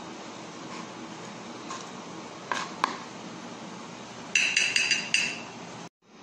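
Two sharp taps of a kitchen knife on a plastic cutting board, then a quick run of about five ringing clinks over a second, a knife striking a glass plate.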